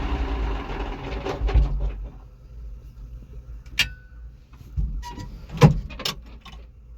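Tractor engine being shut off, running down and stopping over the first two seconds. A few scattered clicks and knocks follow as the key is tried and the engine does not crank, which the owner puts down to a completely dead battery.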